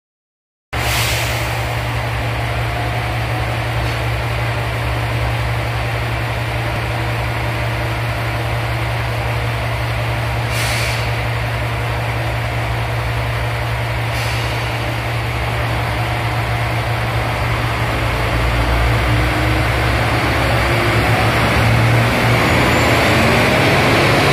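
Matsuura Railway MR-600 series diesel railcar's engine running with a steady low drone, with two short hisses of air about ten and fourteen seconds in. From about eighteen seconds the engine grows louder as the railcar pulls out of the station.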